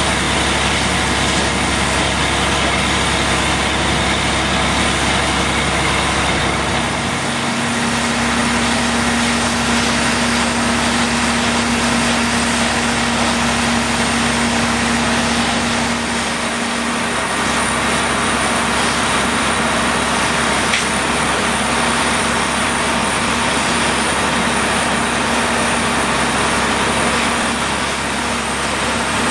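Fire hose spraying water onto a burning pickup truck: a steady, loud rush of water, over the steady hum of a running engine.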